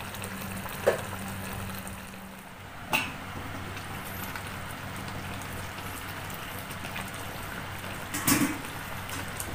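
Thick red chilli gravy with chicken simmering and bubbling in a steel wok, a steady bubbling hiss with a low hum underneath. A few short pops or knocks, the loudest near the end.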